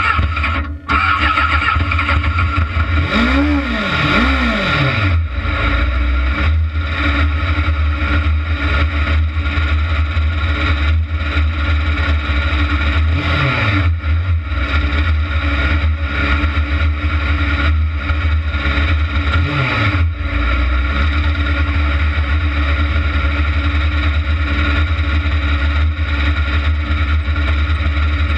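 Kart cross buggy engine idling with a heavy, steady beat, just after starting, and blipped up and back down briefly four times: twice about three and four seconds in, once near halfway and once about two-thirds through.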